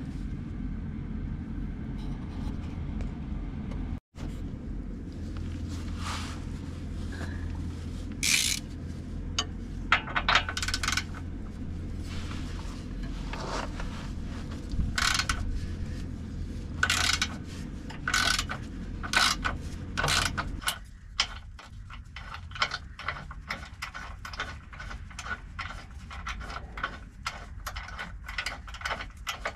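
Hand socket ratchet working the 18 mm frame-side bolt of an upper control arm. First come scattered metal clicks and clanks over a steady low hum. About two-thirds in, the hum stops and a fast, continuous run of ratchet clicks follows as the bolt is spun out.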